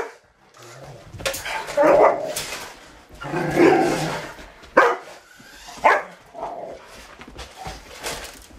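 Rottweiler barking several times, in separate bursts.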